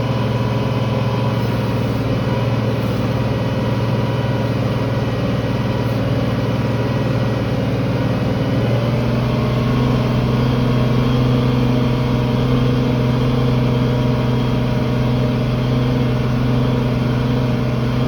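Tractor engine running steadily while working the field. About nine seconds in its tone shifts slightly and it grows a little louder.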